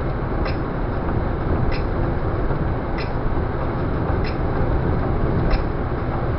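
Steady road and engine noise of a car cruising at motorway speed, heard from inside the car. A faint sharp tick repeats about every second and a quarter.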